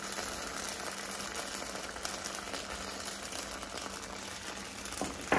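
Barbecue sauce, honey and olive oil sizzling and bubbling in a hot skillet: a steady crackling hiss, with a faint steady low hum beneath it.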